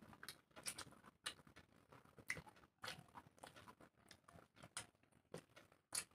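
Soft close-up eating sounds: fingers mixing rice and chicken curry on a steel plate and chewing, an irregular string of small clicks and wet smacks, the loudest near the end.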